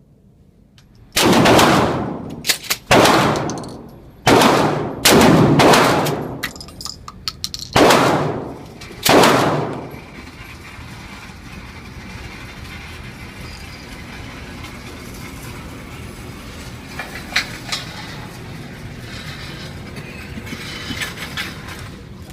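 12-gauge pump-action shotgun, a Mossberg M590A1, firing six shots about one to three seconds apart in the first half, each shot ringing out and fading over most of a second. A steady background hiss with a few faint clicks follows.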